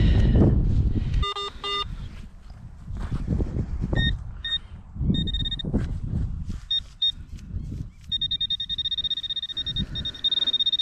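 Handheld metal-detecting pinpointer giving short, high beeps as it is swept over the grass. From about eight seconds in, the beeps come as a fast continuous run, the pinpointer signalling metal close by. Two lower beeps sound about a second in, with rustling and handling noise in the grass.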